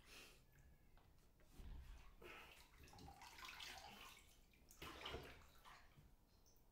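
Faint water sloshing in a bathtub as a body shifts in it, in a few soft swells, the clearest about two and five seconds in.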